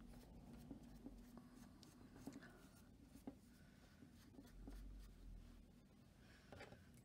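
Faint scratchy rubbing of a tissue dabbed and wiped over a doll's hard sculpted face, smudging wet paint, with small handling clicks. Very quiet overall, over a faint steady hum.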